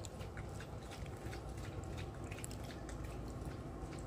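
Faint sounds of people eating: chewing and scattered small clicks of forks against plates, over a low steady background noise.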